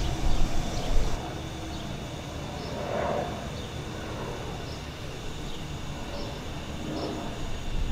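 Steady background rumble with faint, regularly repeating high chirps. A few louder low bumps come in the first second.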